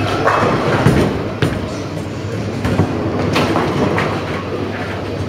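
Storm I.Q. Tour Solid bowling ball released onto a wooden lane and rolling toward the pins with a steady rumble. Sharp knocks and clatter from the bowling alley come through it.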